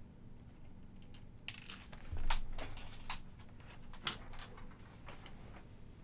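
A run of rustles and sharp clicks, loudest about two seconds in, then a few scattered ticks, from small items being handled and moved on a workbench.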